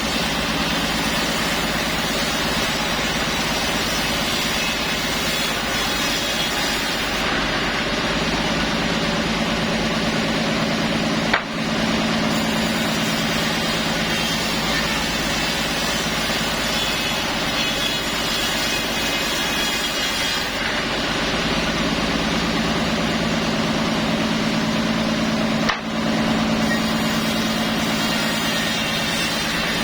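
Sawmill machinery running steadily while sawing mahogany, an engine-driven saw with a constant hum under the noise of the cut. A brief sharp knock comes about a third of the way in and again near the end.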